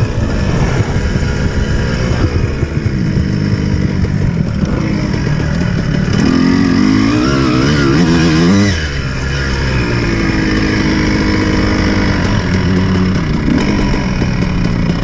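Dirt bike engine under way, heard close up from the bike itself. The revs rise and fall as the rider works the throttle, climbing hard between about six and eight and a half seconds in, then dropping suddenly as the throttle is rolled off.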